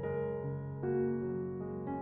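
Background piano music, soft and slow, with chords changing every half second or so.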